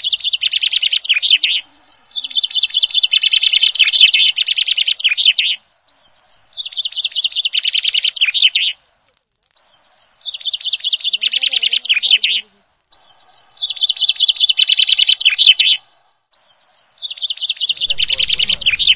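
A bird twittering in repeated phrases: about six runs of fast, high chirps, each two to three seconds long and swelling in loudness, separated by short silences. A low rumble comes in near the end.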